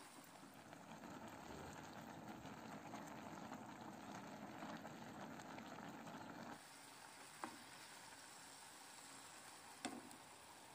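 Faint bubbling of a pot of pasta at the boil. About two-thirds through it drops suddenly to the quieter simmer of tomato sauce in a frying pan, with two light knocks near the end as eggs are tipped in from a bowl.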